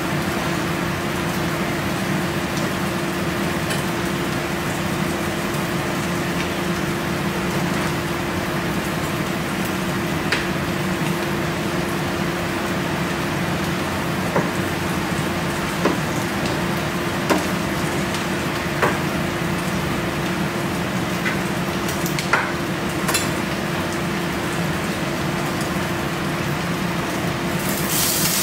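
Kitchen stovetop cooking: a steady sizzling hiss over a constant low hum, with several light clinks of utensils through the middle. Near the end the hiss grows louder.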